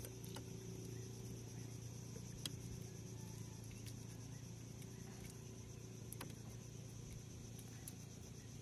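A few faint clicks and taps as a lure's hook is worked by hand out of a grouper's mouth, over a steady low background hum.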